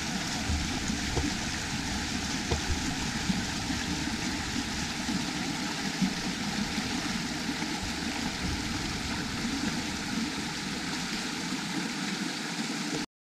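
Steady rushing of running water, with a few soft low knocks. It cuts off abruptly near the end.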